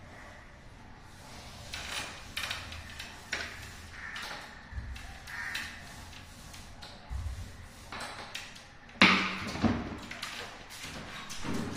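Paint roller working over a ceiling, with a soft hiss and scattered taps and knocks of the roller, tray and ladder. A louder knock comes about nine seconds in.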